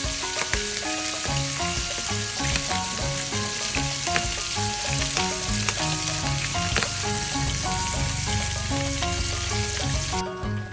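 Milkfish pieces frying in oil in a nonstick pan: a steady sizzle with scattered pops of spattering oil. The sizzle cuts off suddenly near the end.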